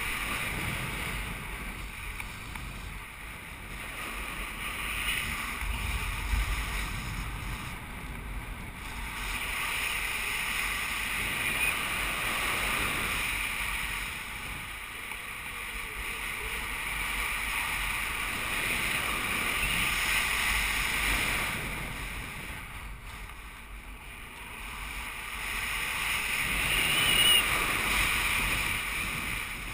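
Airflow rushing over the camera microphone of a paraglider in flight, swelling and easing every few seconds, loudest near the end.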